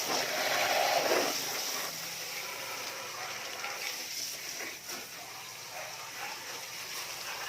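Water spraying and splattering on a window-type air conditioner's evaporator as it is washed clean of dirt, briefly louder in the first second.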